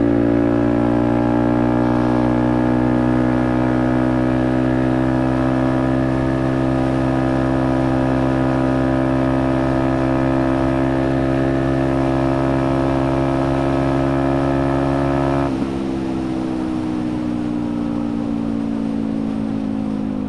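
Motorcycle engine running at a steady cruise under the rider, its note easing down slowly. About three-quarters of the way through the sound drops abruptly as the throttle is closed, and the engine note then falls steadily as the bike slows.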